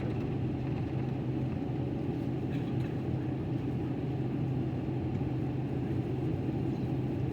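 Steady cabin rumble of a Boeing 777-300ER with its GE90 engines running, heard from inside the passenger cabin: an even roar with a low, constant hum underneath.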